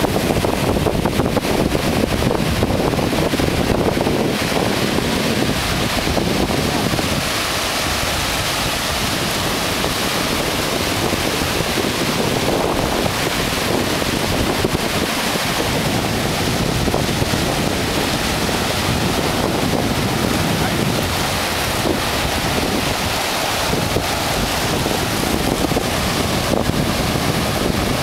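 Surf breaking and washing over a sandy beach in a steady rush, with wind buffeting the microphone.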